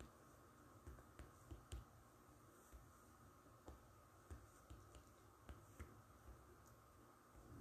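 Near silence with faint, irregular clicks of typing on a smartphone's on-screen keyboard, a few taps a second.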